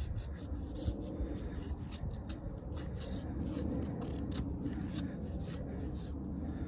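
A D2 steel fixed-blade bushcraft knife shaving thin curls down a split wooden stick to make a feather stick: a series of short, scratchy scraping strokes of the blade through the wood, coming at irregular intervals.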